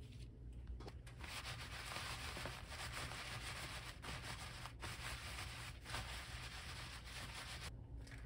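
Hands rubbing and pressing a paper kitchen towel laid over cut garlic scapes to blot off the rinse water: a faint, steady rustle of paper, starting about a second in, with a few brief breaks, and stopping shortly before the end.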